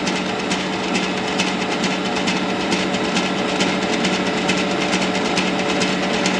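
Bosch stand mixer running, its whisk attachment beating the mixture in the clear bowl: a steady motor hum with regular clicking from the drive.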